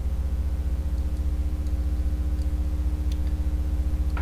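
Steady low hum, with several faint steady higher tones over it and a few faint soft ticks.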